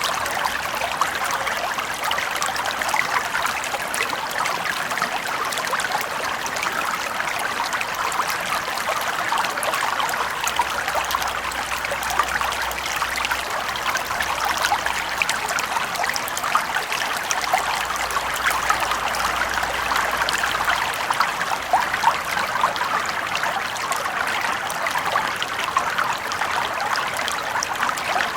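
Small brook flowing over stones, a steady babble of trickling water with fine splashes and ripples.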